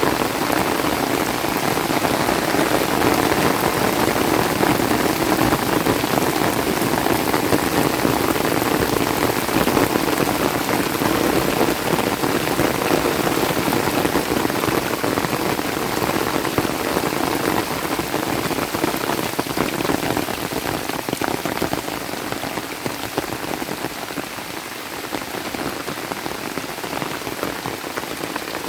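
Steady rain falling on vegetation and ground, a dense even patter that eases a little near the end.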